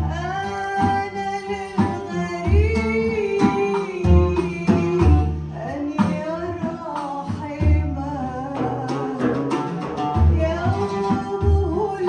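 Live Middle Eastern music from a small ensemble: a voice sings a gliding melody over oud and ney flute, with deep frame-drum strokes about once a second.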